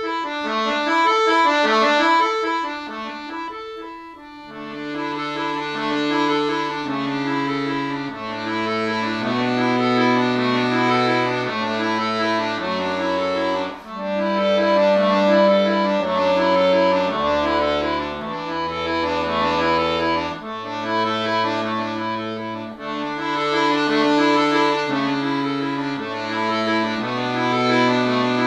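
Chromatic button accordion played solo: the treble melody alone at first, then a stepping bass line joining about four seconds in under the continuing melody.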